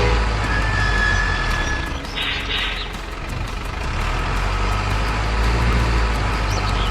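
Truck engine sound, a steady low rumble, with a short hiss about two seconds in.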